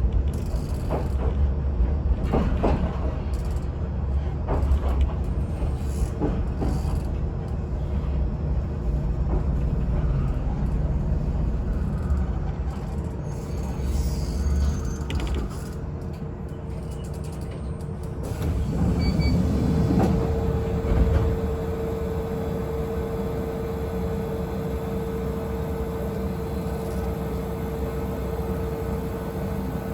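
Local electric train slowing to a stop at a station, its wheels rumbling and clicking on the rails at first, then a louder swell with a few knocks about two-thirds of the way in. After that the train stands with a steady hum and one held tone.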